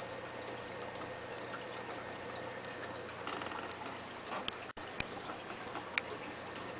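Aquarium filter running, its return water splashing and bubbling into the tank with a steady rush. A few sharp clicks come in the second half.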